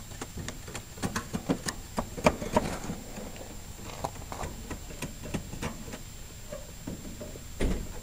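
Ice crunching and cracking in a run of irregular sharp clicks, thinning out after the first few seconds, with a dull thump near the end.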